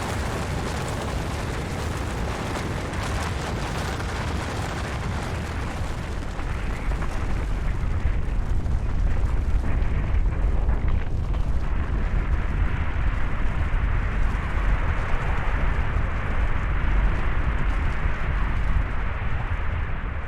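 Avalanche sound effect: a continuous deep rumble of sliding snow and rock with scattered crackling, growing louder about seven seconds in.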